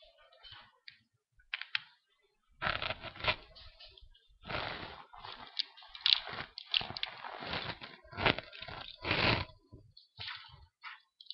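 Irregular crunching and scraping handling noise, in a run of uneven bursts that starts about two and a half seconds in and dies away near the end.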